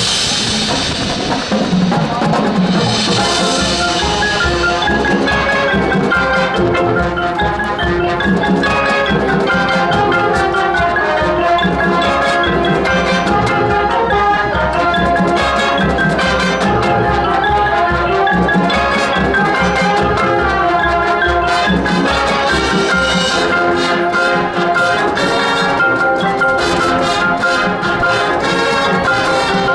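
High school marching band playing: brass with front-ensemble mallet percussion and drums keeping a steady beat. There are cymbal crashes right at the start and about 3 s in, and the low drum pulse drops out about 23 s in while the pitched parts play on.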